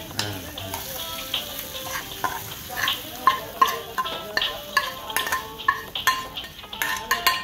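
A metal spoon scraping and tapping again and again against a metal frying pan as fried onion-and-tomato tempering (tadka) is pushed out into a pot of dal, with a sizzle as it lands. The taps come thicker from about halfway through.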